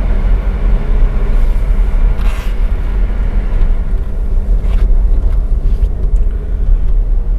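Inside the cabin of a Honda Brio Amaze on the move: its 1.2-litre L12B3 i-VTEC four-cylinder engine running, together with a steady low road rumble.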